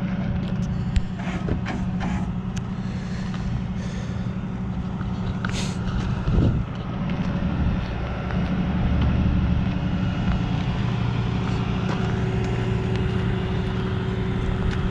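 Flatbed tow truck's engine running steadily, with a low drone that grows a little louder about eight seconds in. A few light clicks come in the first couple of seconds and a short knock about six and a half seconds in.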